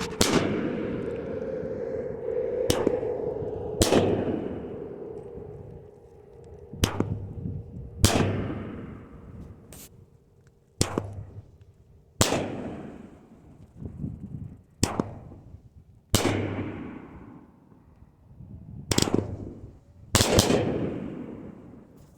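An 8-shot consumer aerial firework cake (Big Fireworks' Cowboy Chaos) firing shot by shot. Each shot is a sharp launch thump, then about a second later a louder aerial break that echoes away, repeating about every four seconds.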